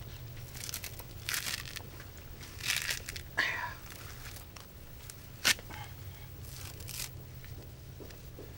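Dry coconut husk fibres being torn and pulled apart by hand, in scattered short rustling tears, with one sharp snap about five and a half seconds in.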